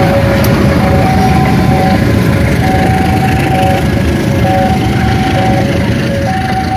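Level-crossing warning alarm sounding a two-note electronic high-low tone, switching about once a second, over the steady rumble of a passenger train passing on the tracks.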